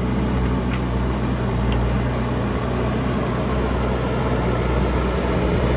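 An engine running steadily at one constant speed, a low even hum that does not rise or fall.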